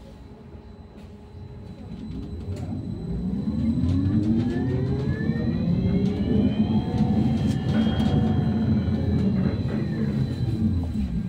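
Ride inside a UTTZ-6242.01 electric bus: a low rumble with the traction motor's whine rising in pitch, then falling again as the bus slows into a stop.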